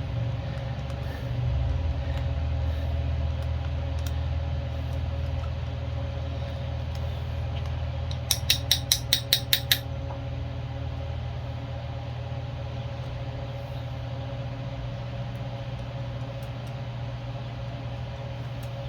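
Steady low workshop hum, with a quick run of about nine sharp, evenly spaced clicks about eight seconds in, made while working to free the jet from a carburetor.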